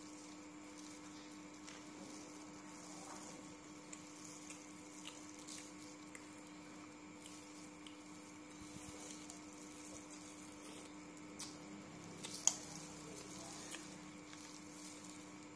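Faint crackles and clicks of shrimp shells being peeled by plastic-gloved hands, with one sharper snap about twelve seconds in, over a steady hum.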